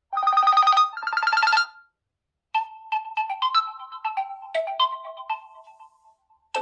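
realme GT2 Pro phone ringtones: two quick electronic trills of rapidly repeated tones, then, after a short pause, a short melody of separate bell-like notes that fades away.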